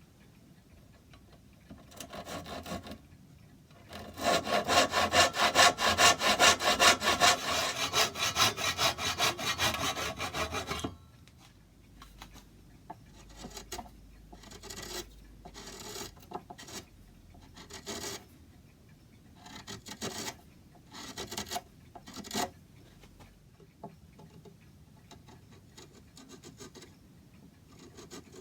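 Hand tool working wood: a fast, loud run of rasping strokes from about four to eleven seconds in, then slower, quieter strokes in short spells.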